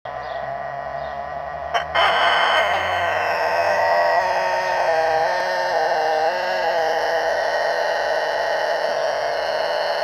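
A young Kosovo long-crowing rooster gives one very long, drawn-out crow. It starts about two seconds in, just after a brief click, and is held on with small steps in pitch.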